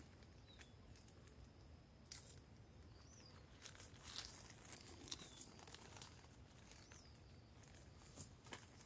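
Faint crinkling and rustling of plastic film being handled and wrapped, with a few sharper crackles about two and five seconds in. Short bird chirps sound now and then.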